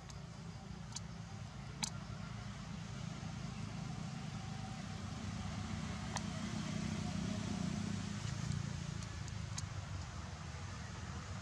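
Low, steady rumble of a motor vehicle engine off in the distance, swelling in the middle and easing off again, with a few faint sharp clicks.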